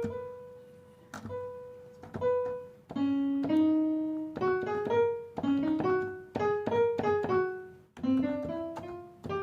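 Piano sound played from a Nektar Impact LX49 MIDI keyboard, single notes one after another, a few a second, each ringing and fading. The keys are being tested after their contacts were cleaned, and every key sounds: the repair has cured the keys that were missing.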